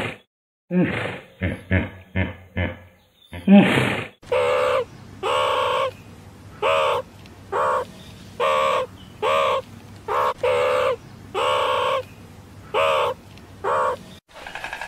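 A hippopotamus giving a run of short grunts, then a meerkat giving about a dozen short calls in a row, each about half a second long with a clear pitch, evenly repeated.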